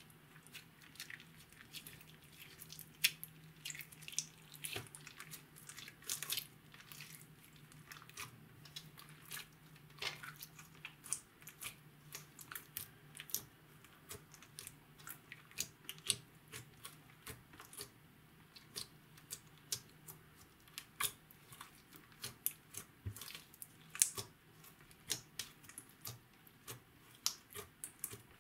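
Hands squishing and kneading a glossy clear slime mixed with makeup and glitter: irregular sticky pops and crackles, several a second, as the slime is pressed and pulled.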